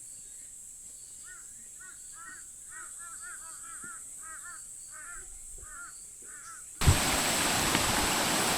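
A bird calling a quick series of short, arching notes over several seconds. Near the end the sound cuts abruptly to the loud, steady rush of a stream's falling water.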